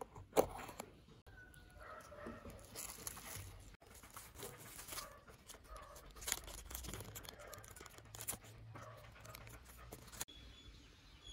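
Small clear plastic bag crinkling and rustling as it is handled and pulled open, with scattered light clicks and taps. A sharp click about half a second in.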